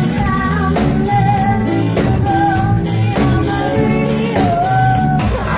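Live rock band playing: a woman singing lead over drum kit and electric guitar.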